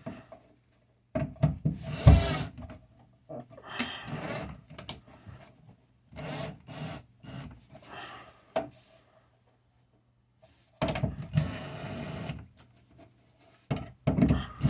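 Screws being driven to fasten an electrical receptacle into its wall box: short bursts of scraping and whirring with clicks, coming in four or five spurts with pauses between.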